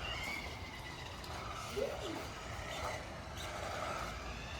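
Electric motors of remote-control cars whining, their pitch rising and falling as the cars speed up and slow down.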